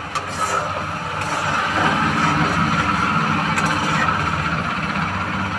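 Potato curry simmering in a non-stick pan while a plastic spatula stirs and mashes the potatoes, with a couple of light scrapes and taps against the pan, over a steady low mechanical hum.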